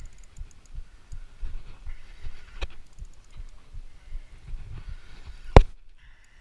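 Irregular low thumps and rubbing on a body-worn GoPro's microphone as the wearer moves. A sharp knock comes about two and a half seconds in and a much louder knock about five and a half seconds in, after which the sound cuts out for a moment.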